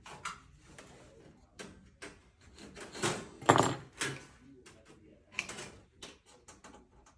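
24-gauge sheet metal being notched out by hand: a run of short, sharp cutting clicks and metal handling knocks, loudest about three and a half seconds in.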